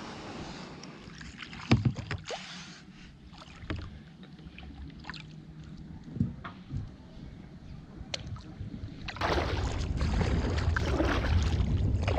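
Kayak being paddled: paddle strokes and water dripping and splashing around the hull, with a few sharp knocks. From about nine seconds in, a louder steady rush with a low rumble takes over.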